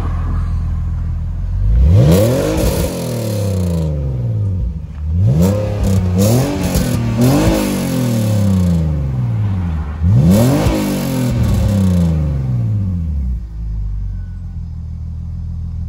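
BMW E46 330Ci's 3.0-litre straight-six idling through a newly fitted Scorpion rear silencer and being revved. It gives one rev about two seconds in, three quick blips between about five and eight seconds, and another rev around ten seconds, each rising then falling back, before settling to a steady idle.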